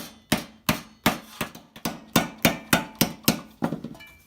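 Hammer striking a steel helmet plate in a steady run of sharp metallic blows, about three a second, each with a short ring: the edge is being flared out to match the other side.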